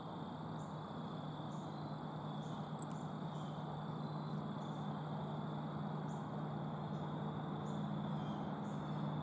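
Insects calling: a steady high trill with short high chirps repeating about once a second, over a steady low hum and hiss.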